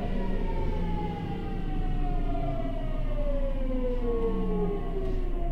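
Hitachi GTO-VVVF inverter and traction motors of a Seibu 6000 series train, heard inside the car, whining as the train brakes into a station. Several tones fall steadily in pitch together as it slows, over the rumble of the running gear.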